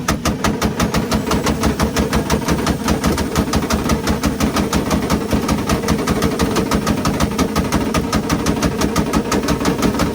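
Two tuned cars, a Mazda and a Mitsubishi, held on two-step launch-control rev limiters at once: a rapid, even string of sharp exhaust bangs and pops over a steady engine note.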